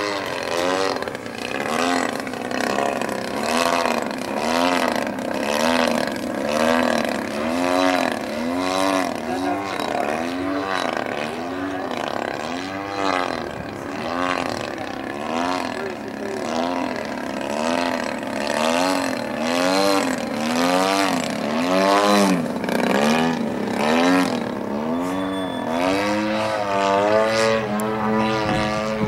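Radio-controlled model airplane engine and propeller running in flight, its pitch rising and falling in even swells about once a second, then holding a steadier note near the end.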